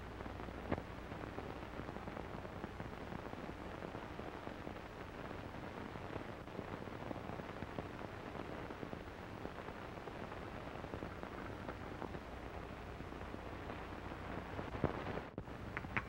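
Steady hiss and crackle of an old optical film soundtrack, with a few sharp clicks, one soon after the start and a couple near the end, where the sound also drops out for a moment.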